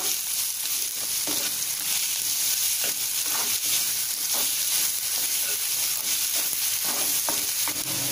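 Chopped onions sizzling in hot oil in a non-stick kadai as they are sautéed, with a spatula stirring and scraping the pan at irregular intervals.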